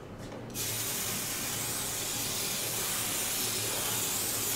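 Sulky KK2000 aerosol spray adhesive hissing from the can in one long steady spray that starts about half a second in, spray basting the backing to the quilt top.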